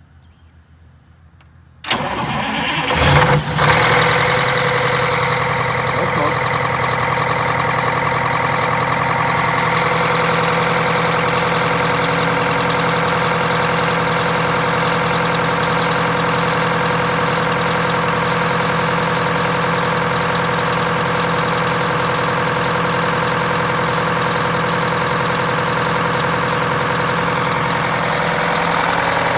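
Detroit Diesel 8V92TA two-stroke turbocharged V8 diesel, freshly rebuilt with four new pistons and liners, cranking and catching about two seconds in. It then settles into a steady idle.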